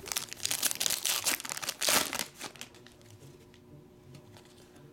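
A stack of glossy baseball trading cards being handled, the stiff cards sliding and flicking against one another. A dense crackly rustling fills the first couple of seconds, then dies down to a few faint ticks.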